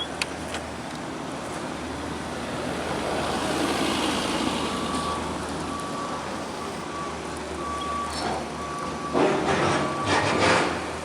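Heavy vehicle engine running with a short electronic beep repeating about once a second, like a reversing alarm, and a louder noisy surge near the end.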